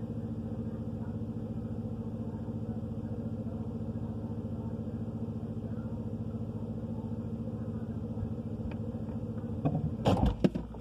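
Refrigerator compressor humming steadily, then several sharp clunks and knocks near the end.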